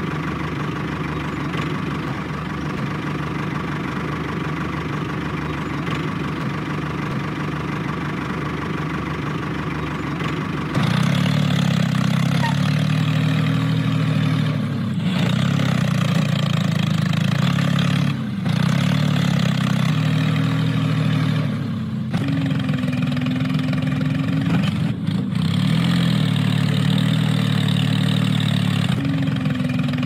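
Small electric motor of a DIY model tractor running steadily. About eleven seconds in it gets louder and deeper, and its pitch sags now and then as the motor labours to drag the trailers through loose sand.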